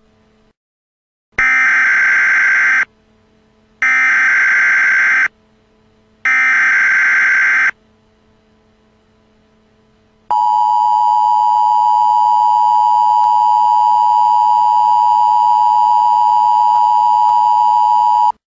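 Emergency Alert System (EAS) signal: three short bursts of the digital SAME header data about a second apart, then the steady two-tone attention signal for about eight seconds, cutting off suddenly.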